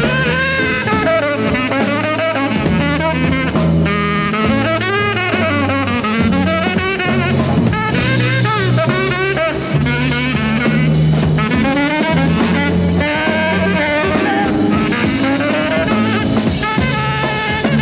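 Swing big band playing a blues, with a tenor saxophone soloing in wavering, bending lines over the band's sustained low notes and rhythm section.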